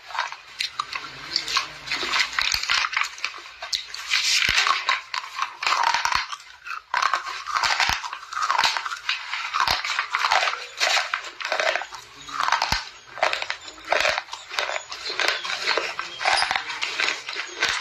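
Slate pencils being bitten and chewed: a continuous run of crisp, gritty crunches with sharp snaps as pieces break between the teeth.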